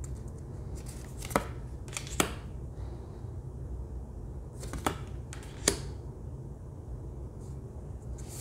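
A deck of stiff cardstock oracle cards being flipped through by hand: a soft sliding swish as a card is drawn off the deck, then a sharp snap of card on card, four times in two pairs about a second apart.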